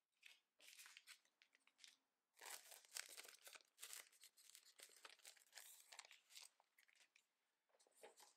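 Faint crinkling and rustling of paper and a clear plastic sleeve being handled, busiest from about two and a half seconds in until about six and a half seconds in.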